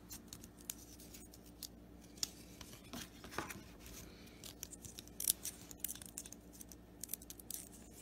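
Cardboard baseball cards sliding and flicking against each other as a stack is sorted by hand: faint, scattered clicks and scrapes, a couple sharper snaps around two and five seconds in.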